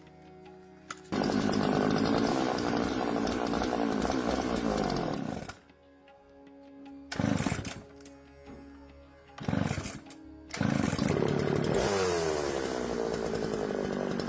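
Repaired old chainsaw's two-stroke engine running in bursts: a long run of several seconds whose pitch falls as it comes off the throttle, two short blips, then another long run, with soft background music in the gaps.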